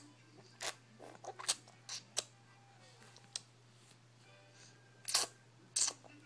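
A baby sucking on its fingers: a string of short, wet smacking clicks at irregular intervals, the loudest about five and six seconds in.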